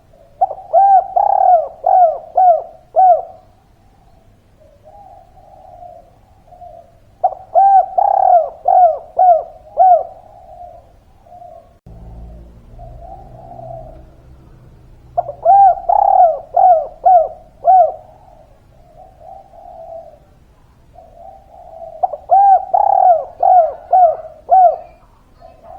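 Spotted dove cooing: four song phrases about seven seconds apart, each a quick run of five or six coos, with softer cooing between the phrases.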